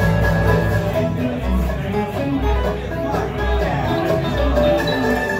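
Acoustic bluegrass band playing: upright bass walking under strummed acoustic guitar and picked mandolin.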